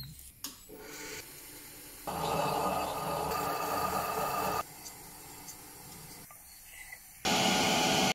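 Metallographic grinding and polishing machine running, a steel threaded-rod specimen held against its wet rotating disc: a steady hiss of abrasion and water with faint steady motor tones. The sound jumps in loudness several times, louder from about two seconds in to halfway, and again near the end.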